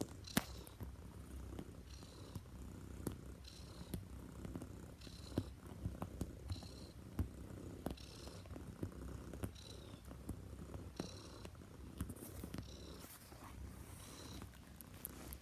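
Neva Masquerade cat purring steadily while kneading a duvet, with scattered soft clicks from its paws and claws working the fabric.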